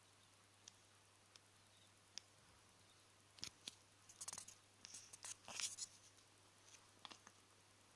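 Faint, scattered clicks and a cluster of short rustling scrapes about halfway through, against near silence.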